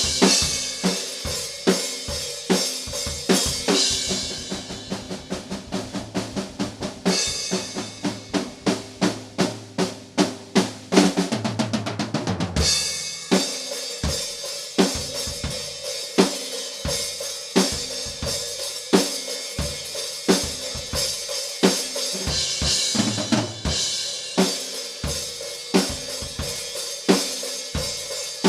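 Solo metal drum kit playing a groove of kick, snare and cymbals, with a long run of rapid strokes in the middle. A fast fill drops in pitch across the toms about eleven seconds in, then the groove picks up again.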